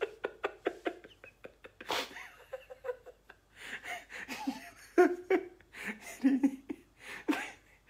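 A man laughing behind his hand: a fast run of short breathy bursts, then separate wheezing gasps and a few short voiced cackles of stifled laughter.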